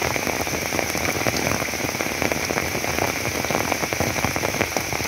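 Heavy rain falling steadily, a dense patter of many small drops.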